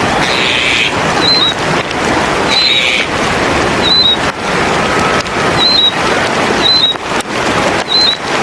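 Spot-throated babbler giving short, high chirps, repeated about once a second, over a loud steady rushing hiss.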